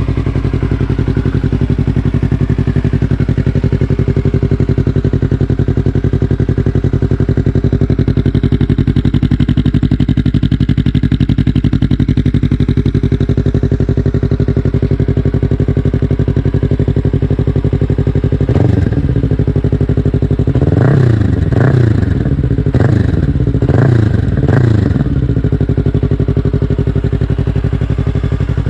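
Yamaha YZF-R3's parallel-twin engine idling steadily through an M4 slip-on exhaust, then revved once briefly and blipped in a quick series of short throttle stabs near the end.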